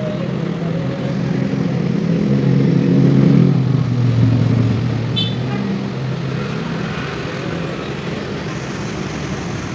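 Motorbike and car traffic passing on a narrow city street. One engine grows louder to a peak about three to four seconds in, then fades away. A brief high chirp sounds about five seconds in.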